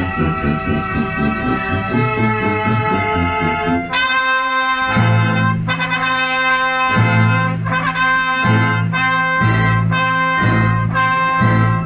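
Brass band playing a tune of horns, cornets and trumpets. About four seconds in the full band comes in louder and brighter, holding chords over a pulsing bass line.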